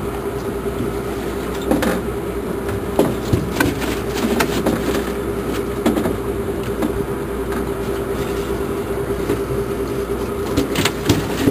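Boat engine running at a steady buzzing drone, with scattered sharp knocks and clatter on deck.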